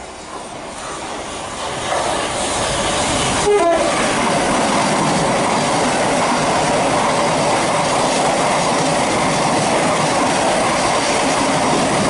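Thameslink Class 700 electric multiple unit running through the station at speed, a steady rush of wheel and air noise that builds over the first two seconds and then holds loud. A brief horn note sounds about three and a half seconds in.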